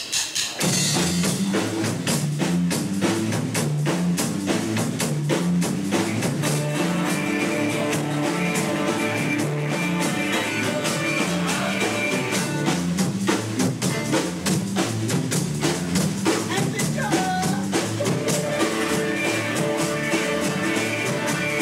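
Live rock band playing: drum kit, bass guitar and electric and acoustic guitars, starting up about half a second in after a brief gap and then running steadily with a regular drum beat.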